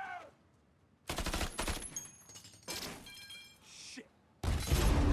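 Rapid bursts of gunfire: a burst about a second in, a shorter one near three seconds, then louder, continuous firing with heavy low end from about four and a half seconds.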